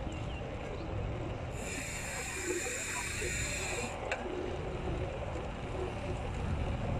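Wind rumble and tyre noise from a mountain bike rolling on asphalt, picked up by a phone mounted on the handlebar. A high hiss starts about a second and a half in and cuts off sharply near the four-second mark, with a short click just after.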